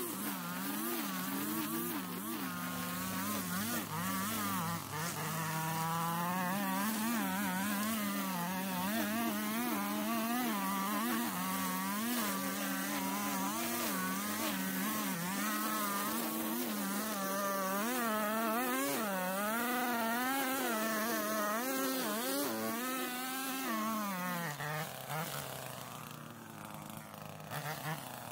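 Gas string trimmer engine running at high speed, its pitch wavering up and down as the line cuts through tall grass. Near the end it drops back toward idle.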